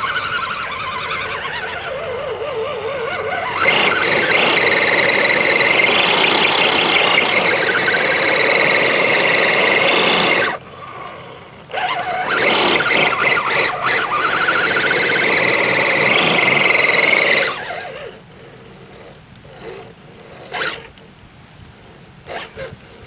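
Electric motor and gear drivetrain of a radio-controlled Jeep rock crawler whining under throttle as it climbs a boulder, in two long pushes with the pitch rising and falling, then a few sharp knocks near the end.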